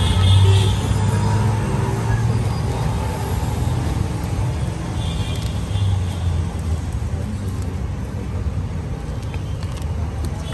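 Steady street traffic noise: a continuous low rumble of vehicle engines.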